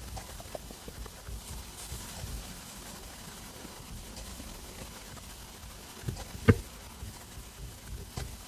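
A human stomach rumbling and gurgling while digesting a meal: irregular low gurgles and small pops, with a sharp, loud gurgle about six and a half seconds in.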